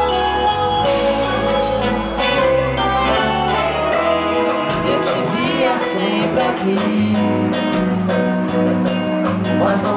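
Pagode band playing live, the song's instrumental opening: a stepping bass line under guitar and other plucked strings, steady and loud.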